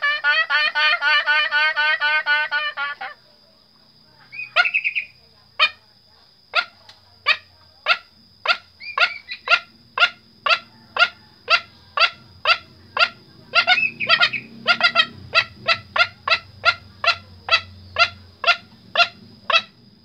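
A man imitating junglefowl calls with his own voice, as a lure for hunting. A fast warbling trill stops about three seconds in. After a short pause comes a long run of short sharp clucks, about two a second, with a few brief squawks mixed in.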